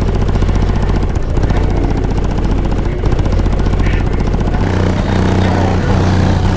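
Very loud, deep bass from four Sundown Audio X 15-inch subwoofers in a Chevy Avalanche, heard from outside the truck, with a fast buzzing rattle from the truck's flexing body panels. About four and a half seconds in, the bass note changes abruptly to a higher one.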